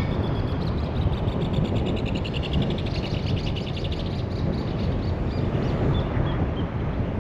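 Steady rumble of a car driving along the road, with a rapid series of high chirps that rise and then fall in pitch from about one to five seconds in.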